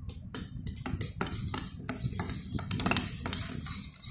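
A metal spoon clinking and scraping against a stainless steel bowl while stirring a glue-and-water mixture: quick repeated clinks, a few a second.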